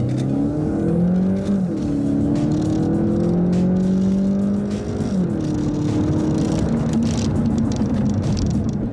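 Volkswagen Golf GTE's 150 hp TSI petrol engine pulling hard at full acceleration in a 0-100 km/h run. Its pitch climbs, drops suddenly at an upshift about a second and a half in, climbs again, and drops at a second upshift about five seconds in before climbing on.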